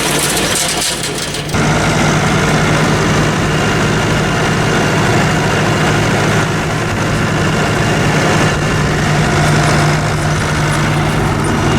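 Massey Ferguson 265 tractor engine running steadily under work, heard from inside the cab; the sound dips briefly over the first second and a half, then steps back up.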